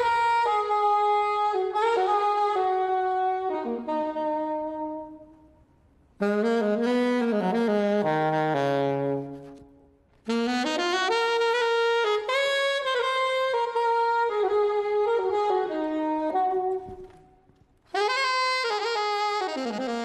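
Solo saxophone playing a slow melody unaccompanied: four phrases of held notes, each fading out before a short pause, the second phrase stepping down to low notes.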